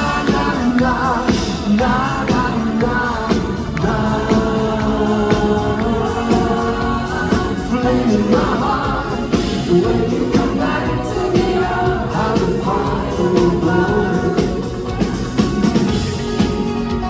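Male lead singer performing a pop song live with band accompaniment.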